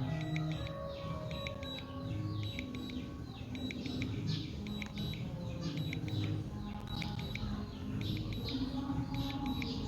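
Background music with held notes that change about once a second, with short falling chirps like birdsong repeating throughout.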